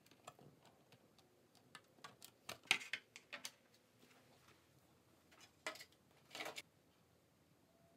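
Faint clicks and taps of hollow 3D-printed lightweight-PLA wing sections being handled, pressed together and set down on the worktable, a run of them around two to three and a half seconds in and two more brief clusters near six seconds.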